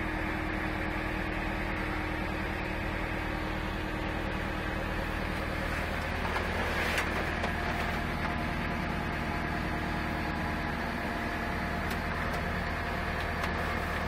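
A JCB excavator's diesel engine running steadily, a low even hum heard from inside its cab.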